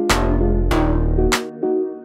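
Electronic background music: synth chords over a deep bass, with two crash-like hits that ring out and fade.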